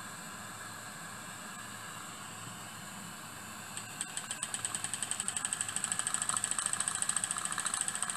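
Steady hiss of a gas torch flame heating a model steam engine's copper boiler. About four seconds in, the single-cylinder, double-acting model steam engine starts after its flywheel is turned by hand, its exhaust puffing in a quick rhythm that speeds up and grows louder.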